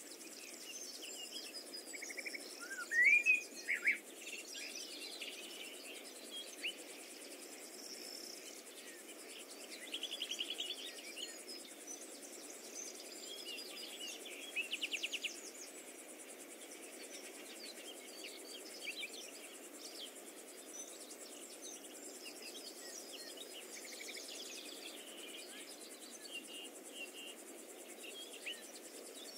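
Birds chirping and calling, with two short bursts of rapid trilling, over a steady faint hiss.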